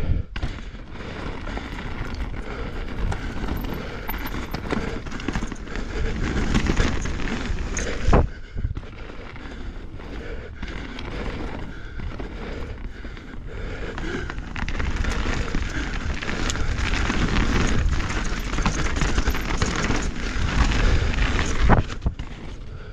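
Mountain bike with 29-inch Maxxis Assegai Double Down tyres riding fast down a dirt trail: a continuous rush of tyre and trail noise with a heavy low rumble. There is a sharp knock about eight seconds in and another near the end.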